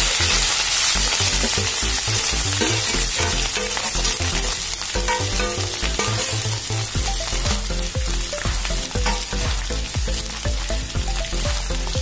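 Grated potato sizzling as it fries in hot oil in a steel kadhai, a steady crackling hiss.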